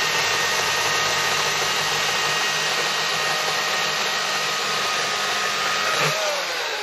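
Husqvarna Power Axe 350i battery chainsaw running at full speed in turbo mode: a steady, even electric-motor whine with chain noise. Near the end its pitch starts to fall as the saw winds down.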